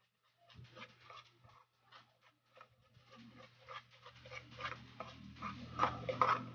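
A metal utensil stirring cake batter in a nonstick pot: quick, repeated scrapes and clicks against the pot, getting busier and louder from about halfway through.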